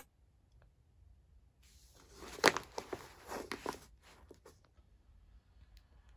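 Brown kraft paper bag rustling and crinkling as it is handled, a burst of crackles lasting about three seconds, starting a couple of seconds in.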